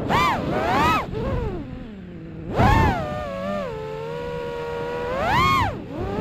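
A high-pitched motor revving up and down in repeated surges, the loudest about two and a half seconds in and another near the end, over low rushing wind.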